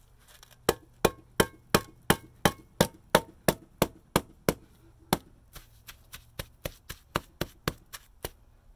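Dead blow hammer tapping steadily on a metal curb trowel, about three strikes a second, driving the trowel down into fresh concrete to lower the curb. After a short break about five seconds in, the taps come lighter.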